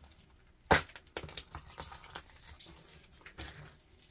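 Hands tearing the head off a largemouth bass. There is one sharp snap about three-quarters of a second in, then scattered small clicks and wet rustles as the fish is handled.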